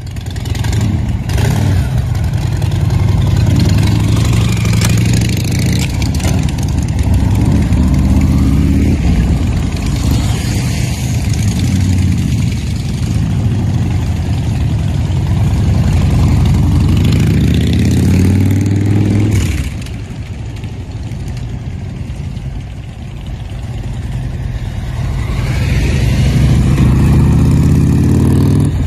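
Several Harley-Davidson V-twin motorcycle engines running and revving, the pitch rising and falling as the bikes pull away and ride. The sound drops back a little past the middle and builds up again near the end.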